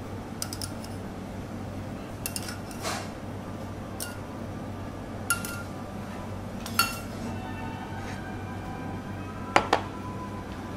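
Crockery and utensils clinking: scattered light clicks and china clinks, some ringing briefly, the loudest a sharp double clink near the end, over a steady low hum.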